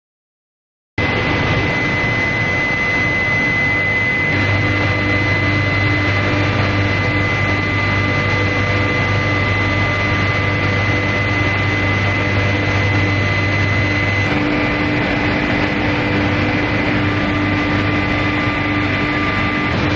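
Continuous heat-treatment furnace line running: steady machine noise with a constant high whine and lower hum tones, starting abruptly about a second in. A deep hum comes in about four seconds in and drops out around fourteen seconds.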